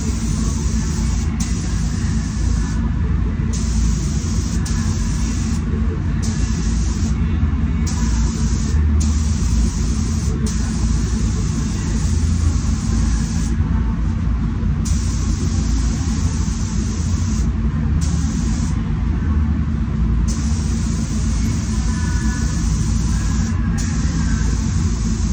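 Steady low rumble of a paint booth's air system under the hiss of a SATA Jet 5000 RP spray gun spraying paint; the hiss cuts out briefly about a dozen times.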